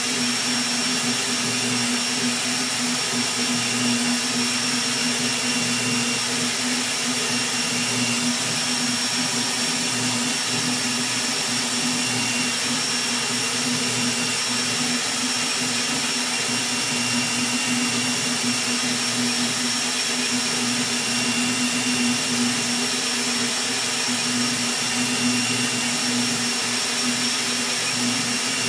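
Rat Rig V-Core 3 3D printer printing at high speed: a steady whir of its Delta 40 mm part-cooling fan at 80% speed and its motors, with a constant low hum.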